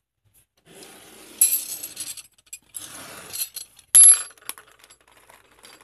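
Plastic zip-lock bag of blueberries crinkling as it is handled and tipped, then a sharp metallic clink about four seconds in as berries drop onto a metal spoon.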